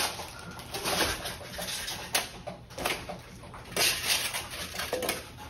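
Cardboard box and styrofoam packing being handled as parts are pulled out: irregular rustling and scraping, with a few short squeaks.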